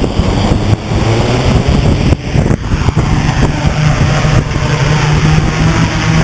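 Hexacopter's six brushless motors and propellers running on the ground: a steady droning hum over a rushing noise of propeller wash.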